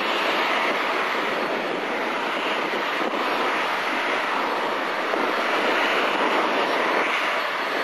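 Airbus A321-112 airliner's CFM56 turbofan engines at takeoff power as it climbs away just after lift-off: a steady, loud rushing jet noise.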